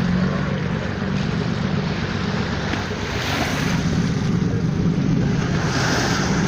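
Steady rush of wind on the microphone and water, with a low hum under it from a boat's motor.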